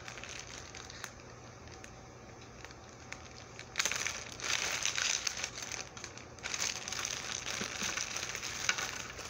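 Packaging wrap crinkling and rustling as it is handled and unwrapped by hand, starting about four seconds in and coming in two spells with a short break between.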